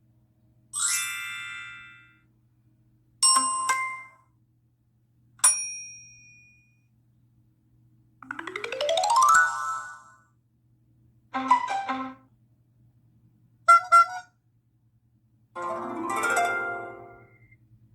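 A cell phone's notification tones played one after another: seven short electronic chimes and jingles, each a different tone, separated by pauses of a second or two. The one about eight seconds in is a rising sweep.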